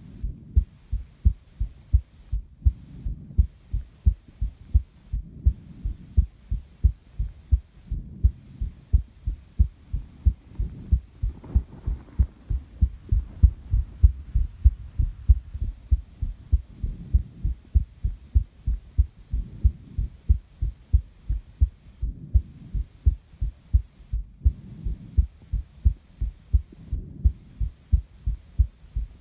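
A person's heartbeat heard up close: a steady lub-dub of low thumps running without a break. Softer swells of breathing rise and fall under it every few seconds.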